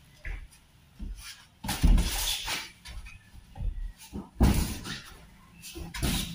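Boxing gloves thudding as punches land on gloves during sparring: a series of irregular blows, several quick ones and two heavier hits about two and four and a half seconds in.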